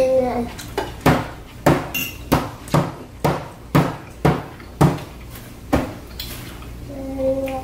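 A run of about ten sharp knocks at a dining table during a meal, roughly two a second, which then stop.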